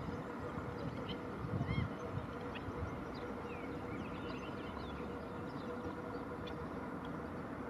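Outdoor wetland ambience: a steady low rumble with a faint hum, and many faint, short, high bird calls scattered through it. A louder low surge comes about one and a half seconds in.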